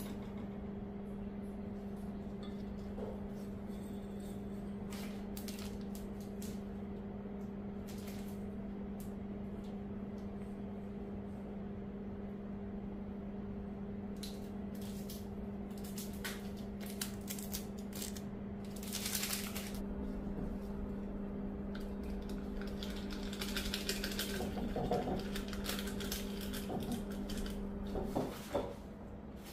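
Scissors snipping flower stems and small clicks of handling, with crinkling of flower wrapping from about two-thirds of the way in, over a steady electrical hum that stops near the end.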